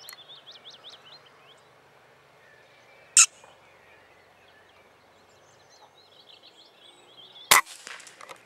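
Birds singing faintly over quiet field ambience, broken by two loud sharp reports: a short high click about three seconds in and a shot-like crack with a brief ring-out near the end.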